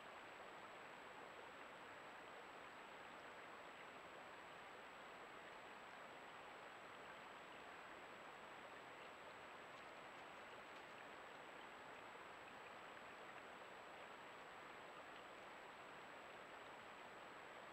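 Near silence: a trail camera's steady microphone hiss with a faint, steady high-pitched whine.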